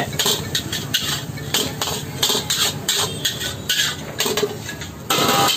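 Metal ladle scraping and clanking against an iron wok as fried rice is stirred and tossed over a high gas flame, in quick irregular strokes.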